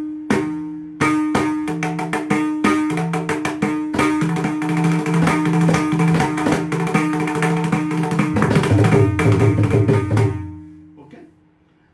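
Mridangam played solo: a fast run of rhythmic strokes on the right head, which rings at one steady pitch, with deep bass strokes on the left head joining in about eight and a half seconds in. The playing stops about ten and a half seconds in and the ring dies away.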